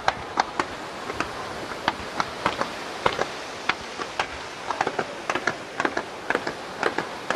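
Fireworks firing in a quick, irregular run of sharp pops and small bangs, several a second, over a steady hiss, as low comets and spark bursts go up over the water.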